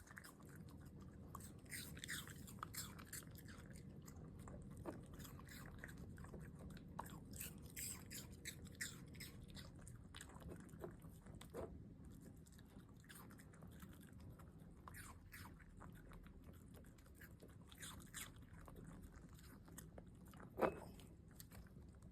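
A dog crunching and chewing pieces of raw apple, with irregular crisp bites throughout and one louder click near the end.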